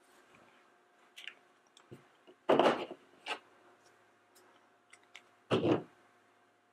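Plastic toy figure and its snap-on plastic clothing pieces being handled: scattered light clicks and taps, with two louder knocks, one about two and a half seconds in and one about a second before the end, as the figure is set down.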